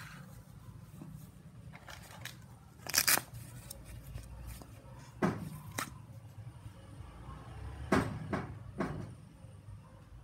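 Accessories being handled in a plastic power-tool carry case: a handful of short knocks, clatters and rustles, loudest about three seconds in and again near eight seconds.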